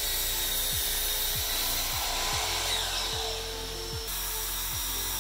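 DeWalt sliding compound miter saw running at full speed and cutting through a clamped wooden board, a loud dense whine.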